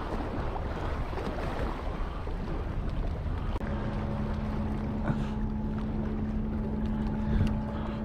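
Wind rumbling on the microphone; about three and a half seconds in, a steady low hum from a boat's engine sets in and holds.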